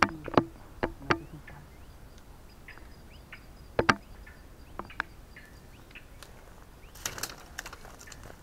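Twigs and brush snapping and rustling as someone pushes through dense thorn scrub: several sharp cracks in the first second, a close pair near four seconds, and a longer rustle about seven seconds in. Short bird chirps are scattered throughout.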